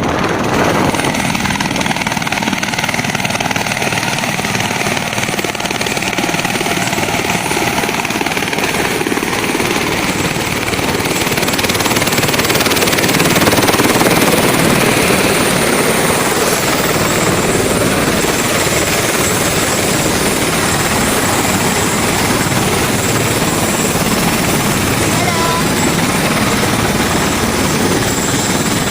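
Helicopter in flight: steady, loud rotor and engine noise, swelling slightly about halfway through.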